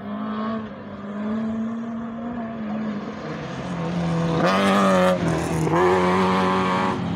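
Two rallycross cars at high revs on a dirt track, their engines getting louder as they close in. They pass close one after the other, loudest from about four and a half to seven seconds in.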